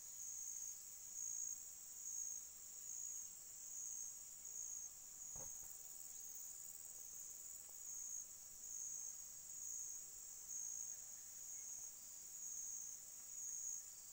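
Forest insects trilling: a steady, high-pitched chorus that swells and fades about once a second. There is one soft thump about five seconds in.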